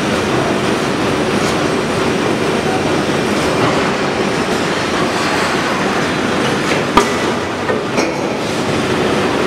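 Cold rolling mill line running with a steady mechanical clatter and rattle, with two sharp metallic clicks about a second apart near the end.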